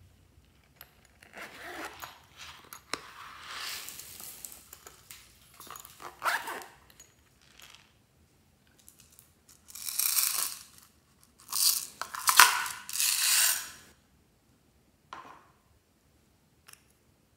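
Bursts of rustling, crunching noise from things being handled and poured into trays of slime, among them small green beads. The loudest, longest bursts come in the second half.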